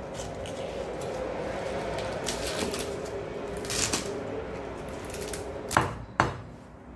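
Crisp cabbage leaves crinkling as they are handled and torn, then a steel cleaver chopping through the stacked leaves onto a wooden cutting board, with two sharp knocks near the end that are the loudest.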